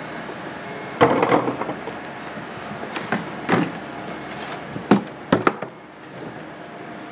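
Plastic tub knocking against a wheelie bin as rubbish is tipped into it, with rustling. There is a loud clatter about a second in, then more knocks and thumps around three seconds, and sharp knocks near five and five and a half seconds.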